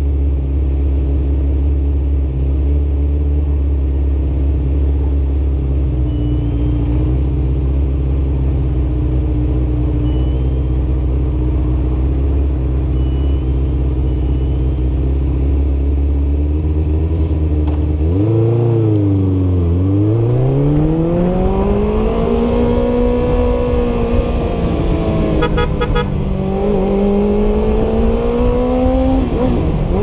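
Kawasaki GPX600's inline-four engine through a Yoshimura RS-3 exhaust, idling steadily for a long stretch. Then the bike pulls away in first gear: the revs dip, climb in a long rising note, ease off, then climb again.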